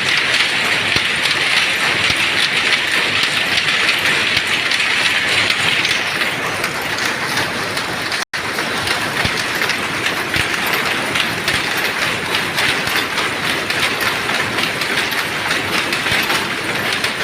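Dobby power loom weaving terry towels, running with a loud, dense, fast mechanical clatter. It turns a little duller from about six seconds in, and breaks off for a split second just after eight seconds before running on.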